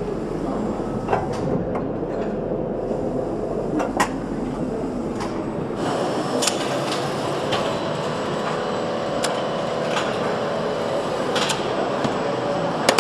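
Factory noise on a motorcycle engine assembly line: a steady machinery hum with a few sharp metallic clicks and knocks, a second or more apart.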